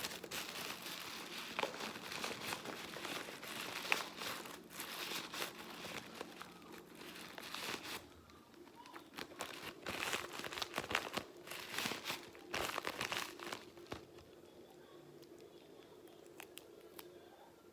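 Paper and plastic crinkling and rustling as a handmade paper squishy and its stuffing are handled. The crinkling is dense for about the first eight seconds, comes in short bursts after that, and mostly dies down near the end, leaving a few light clicks.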